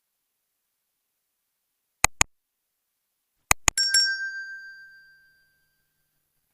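Two sharp clicks, then a quick run of clinks that ring on with a bell-like tone and fade over about a second and a half.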